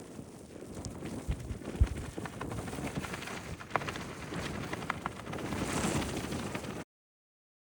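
Outdoor wind noise on the microphone with scattered clicks and a couple of low thumps. The sound cuts off abruptly to silence near the end.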